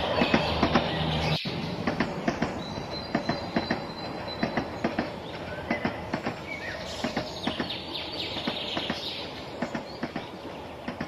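Toy trains running on plastic track, their wheels clicking rapidly over the rail joints, getting gradually quieter as the train pulls away.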